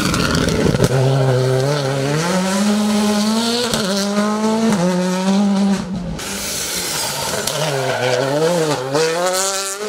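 Škoda Fabia R5 rally car's turbocharged four-cylinder engine under hard acceleration, revs climbing in steps as it pulls out of a hairpin. About six seconds in the sound drops away sharply, then the revs rise and fall quickly as the car works through the next bend.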